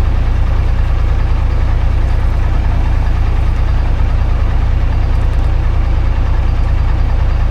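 A machine running steadily with an even, deep, pulsing rumble, like an engine at idle.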